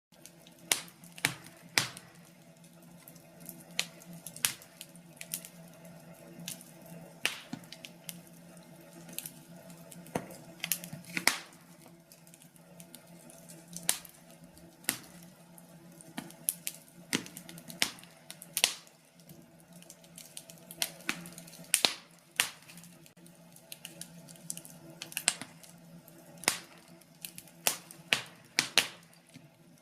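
Wood fire crackling in a fireplace: irregular sharp pops and snaps, several a second at times, over a steady low hum.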